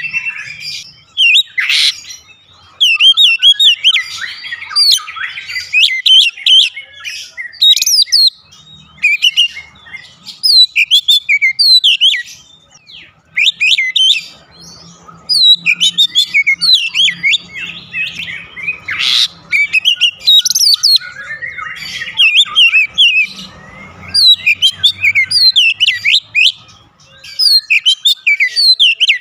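Oriental magpie-robin singing: loud phrases of quick, varied whistled notes that glide up and down in pitch, with short pauses between phrases.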